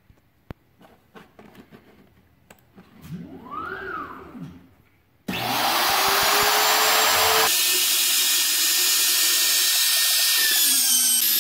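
A CNC machine's motors give a short whine that rises and falls in pitch as the gantry moves, then about five seconds in the wood router serving as its spindle switches on with a sudden start, its whine climbing for a couple of seconds as it spins up to full speed, and then runs loud and steady.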